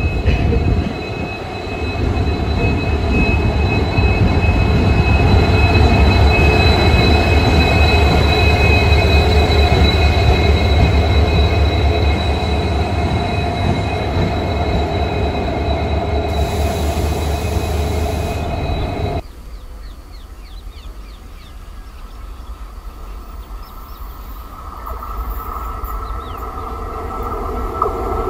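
EMD diesel locomotive running light past at close range, its engine a loud low rumble with steady high-pitched whines over it. About two-thirds of the way through, the sound cuts to a WAG-9 electric locomotive approaching, much quieter at first and growing louder near the end.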